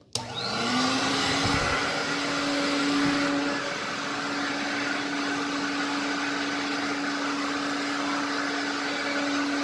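1960 Sears Lady Kenmore Kenkart vacuum cleaner switched on at high speed: the motor starts suddenly, rises in pitch as it spins up over about a second, then runs with a steady hum and rush of air.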